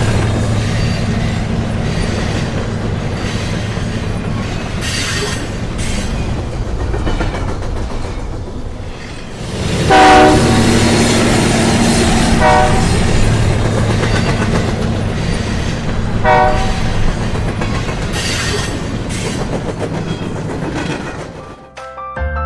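A train running on rails with a steady rumble and clatter. A loud horn blast sounds about ten seconds in, with shorter horn toots a couple of seconds and about six seconds later. The train sound fades out near the end.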